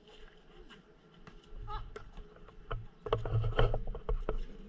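Sounds of an outdoor basketball game on a concrete court: low thuds and scuffing footsteps, busiest in the second half, with a short squeak and faint distant voices.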